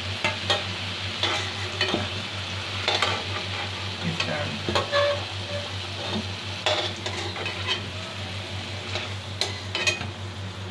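Potato chunks sizzling in hot oil in an aluminium karahi, with a metal utensil scraping and knocking against the pan several times as the fried potatoes are lifted out.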